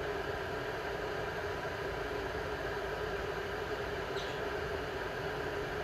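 Glass electric kettle heating water, a steady hiss as bubbles form before the boil, with a faint tick about four seconds in.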